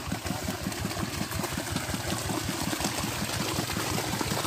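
Dongfeng 16 HP single-cylinder diesel engine running steadily with an even, rapid beat while it drives a centrifugal water pump.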